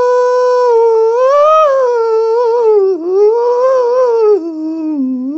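Wolf howling: one long held note that rises slightly, wavers, then drops to a lower, quieter pitch about four seconds in.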